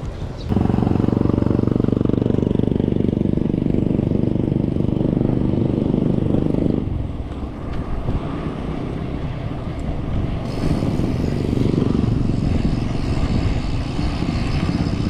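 Motor vehicle engine running close by, loud and steady, starting suddenly about half a second in and cutting off near the middle, with a weaker engine sound coming back a few seconds later.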